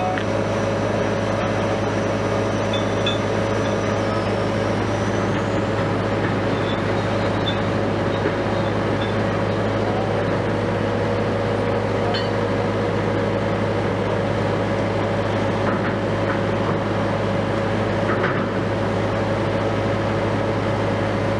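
Diesel engine of a Liebherr LTM 1750-9.1 mobile crane running steadily at constant speed, a low even drone with a steady tone over it.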